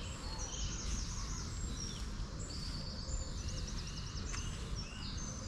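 Several small songbirds chirping and singing, one with a quick warbling phrase a few seconds in, over a steady low outdoor rumble.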